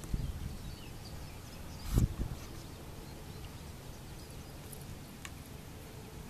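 Outdoor ambience by the water: low rumbling buffets on the microphone and a single thump about two seconds in, with a few faint high chirps and a soft click near the end.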